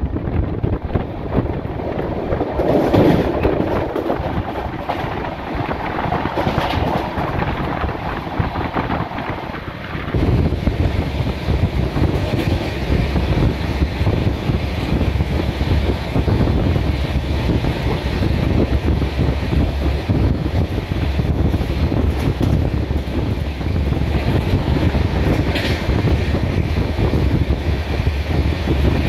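Moving train heard from on board: the steady running noise of wheels on the rails, a continuous rumble and rattle. About ten seconds in the low rumble grows louder and stays that way.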